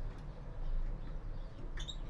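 Caged finches give a few short, faint chirps, the clearest near the end, over a steady low hum.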